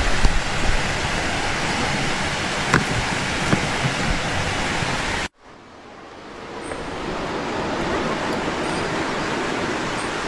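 Steady rushing noise of a fast, muddy river, with a few faint knocks. About five seconds in it cuts off abruptly, and a similar steady rushing noise fades back in over the next couple of seconds.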